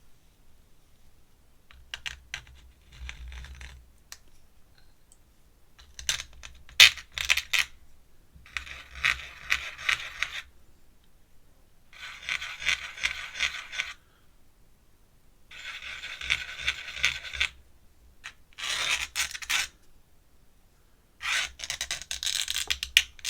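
Pen scratching across paper in repeated strokes: about seven short bursts of scratchy drawing, each a second or two long, with pauses between.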